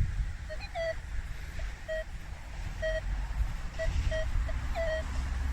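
Minelab Equinox metal detector giving short, irregular low-pitched beeps, some breaking up or bending in pitch, as the coil sweeps over iron in ground full of iron. There is a low rumble of wind or handling noise underneath.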